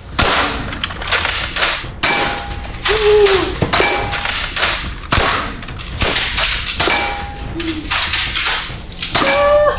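X-Shot foam-dart toy blasters firing in a rapid, irregular series of sharp shots, about one or two a second.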